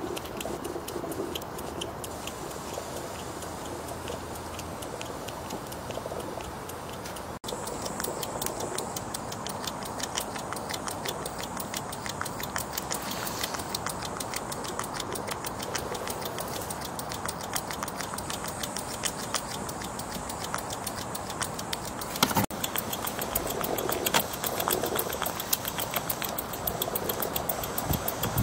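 Chiltern model single-cylinder horizontal mill steam engine running on live steam, its exhaust beats giving a rapid, even ticking. The steam valve is only cracked open while the engine is still warming up.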